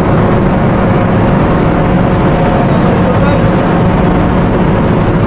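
Steady, loud drone of a container ship's machinery, an even rumbling hum with a faint constant tone in it and no breaks.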